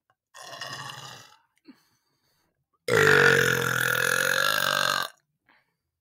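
A man burping as hard as he can: a short, quieter burp about half a second in, then a long, loud burp of about two seconds that cuts off sharply.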